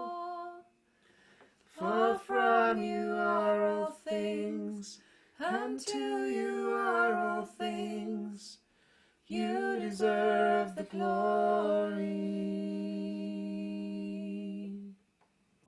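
A woman and a man singing slow worship phrases in four stretches with short breaths between, holding long notes, the last held for about three seconds near the end. A few soft acoustic guitar strums sound under the voices.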